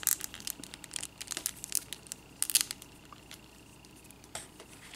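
Small plastic clicks and scrapes as a hard plastic toy gun accessory is pressed and twisted into an action figure's soft, gummy plastic hand. The clicks come thick over the first two seconds, a sharper cluster follows about two and a half seconds in, and a single click comes near the end.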